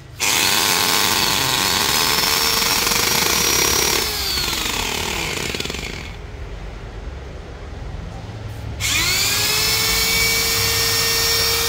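Corded 100 V hammer drill run with an empty chuck. Its motor whine spins up to a steady pitch and holds for about four seconds, then winds down. About nine seconds in it is triggered again, spinning up quickly and holding a steady whine.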